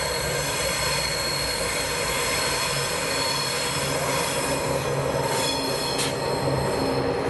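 Diesel locomotives rounding a curve: the wheels squeal in several steady high tones over the low hum of the engines. The squeal thins out after about four and a half seconds, and a single sharp clank comes about six seconds in.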